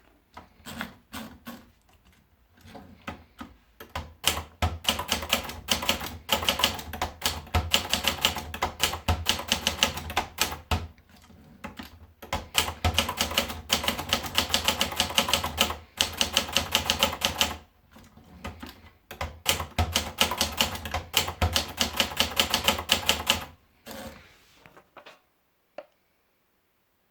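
Adler Tippa S portable manual typewriter being typed on: rapid runs of sharp key strikes, several a second, broken by short pauses, with a few single strikes near the end.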